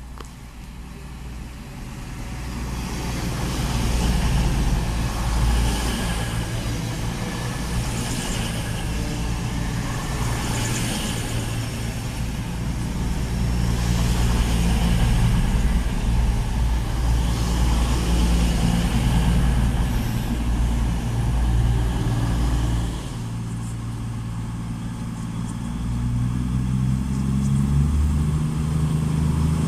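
CrossCountry Class 220 Voyager diesel multiple unit arriving at a station, its underfloor diesel engines growing louder over the first few seconds as it approaches, then a steady engine hum as the coaches roll slowly past. Near the end the sound dips and a new steady engine note sets in as the train slows to a stop.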